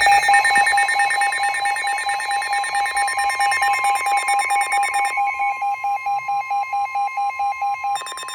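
NOAA weather radios sounding a severe thunderstorm warning alert. The steady 1050 Hz warning alarm tone sounds over the radios' own rapid, evenly pulsing alarm beeps, which shift pattern about five seconds in.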